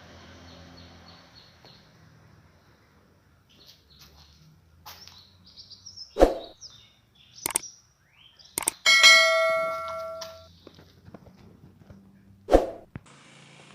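Metal clanks and knocks, with one loud metallic strike about nine seconds in that rings on for over a second, and another sharp knock near the end.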